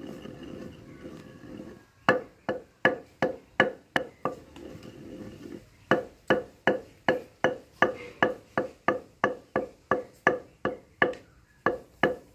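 Wooden pestle pounding into a wooden mortar: sharp, even knocks about three a second, with a pause at the start and another about four to six seconds in.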